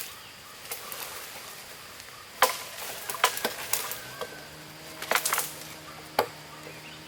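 Irregular sharp clacks and knocks of bricklaying work: bricks and a mason's trowel striking each other, several separate hits. A low steady hum starts about four seconds in.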